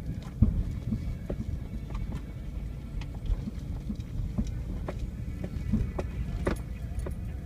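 Cabin noise of a vehicle crawling over a rocky dirt trail: a steady low rumble of engine and tyres, broken by irregular knocks and rattles as the vehicle jolts over rocks and ruts.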